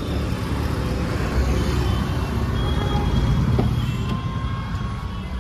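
Steady low rumble of street traffic, swelling a little about three seconds in.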